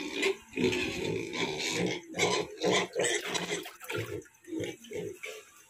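Duroc–Large White cross pigs grunting and calling in a quick run of short calls, several a second, thinning out near the end.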